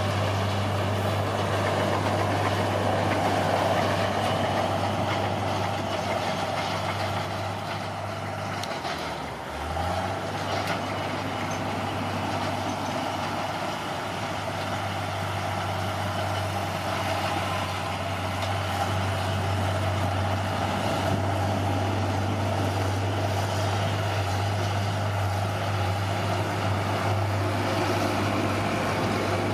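Bulldozer's diesel engine running steadily while working, its low hum dropping briefly in pitch about nine seconds in and then picking back up.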